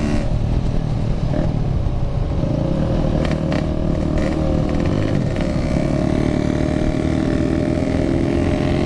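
Two-stroke Yamaha RX-King motorcycle engine with a packing power expansion-chamber exhaust, heard from the rider's seat: the engine eases off just after the start, then pulls again from about six seconds in with its pitch rising gently. A few short clicks sound around the middle.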